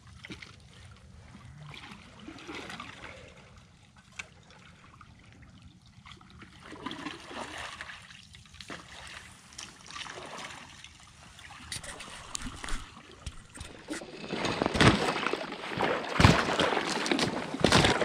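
Footsteps in waders sloshing through shallow, partly frozen water, with sharp crackles of thin ice breaking. The sound is faint at first and much louder from about two-thirds of the way through.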